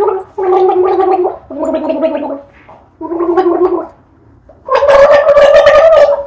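A woman gargling a tune: a run of held notes about a second each, stepping up and down in pitch, ending on a higher, louder, bubbling note that cuts off near the end.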